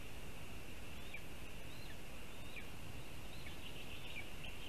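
Forest ambience with a steady high hiss, over which a bird gives short, quick chirping calls, starting about a second in and coming faster near the end.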